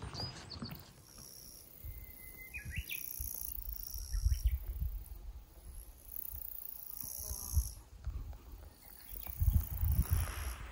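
Insects trilling in high-pitched spells of a second or two, over gusts of wind rumbling on the microphone, with a short chirping call about two to three seconds in.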